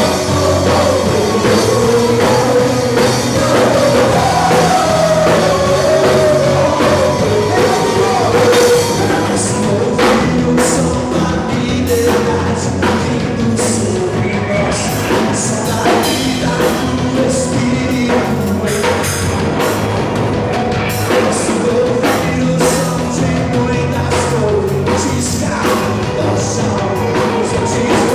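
Rock-style worship music from a band: a singer over a full band with drum kit, the drum hits becoming sharper and more prominent from about ten seconds in.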